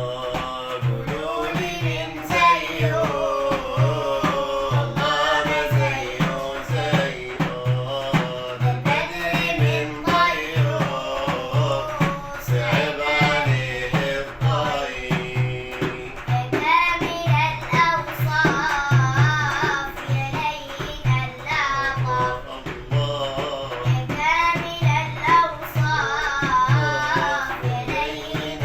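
A young girl singing an Arabic nasheed with an ornamented, wavering melody over a steady drum beat.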